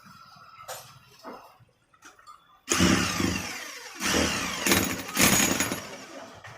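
Electric 5 kg chipping hammer (demolition breaker) switched on about a third of the way in and running loud in a few surges of power before easing off near the end.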